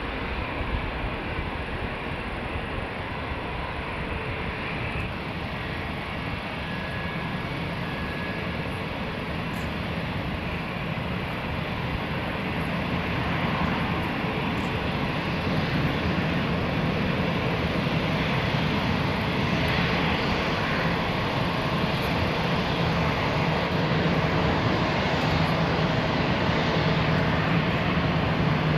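Jet aircraft engines running with a steady rushing roar, growing gradually louder as the aircraft comes nearer, with a low hum coming in over the second half.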